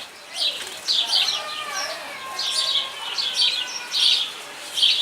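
Bulbuls chirping in an aviary cage: many short, high chirps repeated throughout, with a few lower whistled notes sliding in pitch about one to two seconds in.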